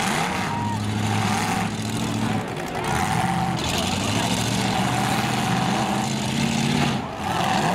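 Demolition derby truck engines running hard, their pitch rising and falling as the drivers rev them.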